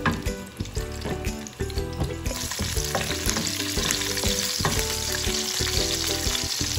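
Dried curry leaves and green chillies sizzling in hot oil in a non-stick frying pan while a wooden spatula stirs them, with light scrapes and taps of the spatula on the pan. The sizzle strengthens a little over two seconds in.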